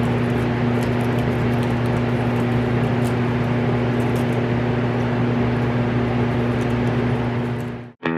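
Airbrush air compressor running with a steady electric hum and a haze of air noise, cutting off abruptly near the end.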